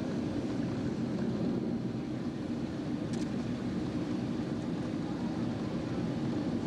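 Steady engine and airflow noise inside a jet airliner's cabin, heard at a window seat beside the turbofan engine. A faint click sounds about three seconds in.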